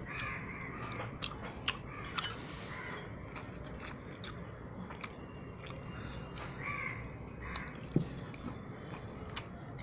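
A person chewing and eating, with scattered light clicks and taps from the food and plate.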